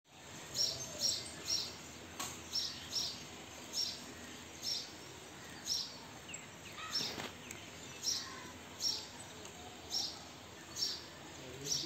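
A bird calling over and over with short high chirps, about one a second, some in quick pairs near the start, over a steady outdoor background hiss.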